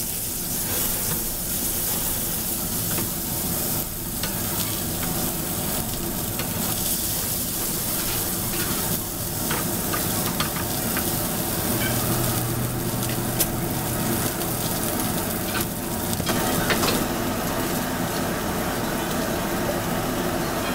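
Diced chicken sizzling in a nonstick frying pan on a gas burner, with a steady hiss and occasional clicks and scrapes as a wooden spatula stirs the pieces.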